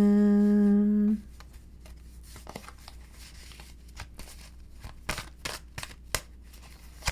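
Tarot cards being shuffled and drawn from the deck: soft handling noise with scattered sharp card clicks, a few louder ones about five to six seconds in.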